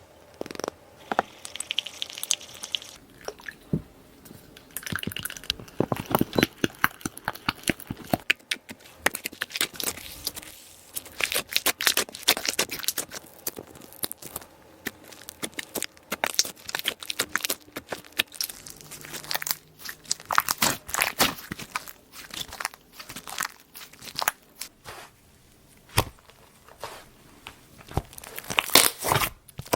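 Hands making gum slime: a dense, irregular run of sticky clicks, crackles and crinkles as the gum and slime material is handled, pulled and worked, busier from about a third of the way in.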